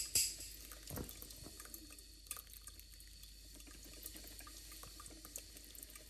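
Coffee trickling and dripping into a glass carafe: a steady trickle with scattered small ticks and drips.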